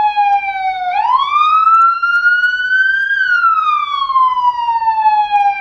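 Police siren sounding a slow wail, loud and steady. Its pitch dips, climbs for about two seconds, then slides back down for about three.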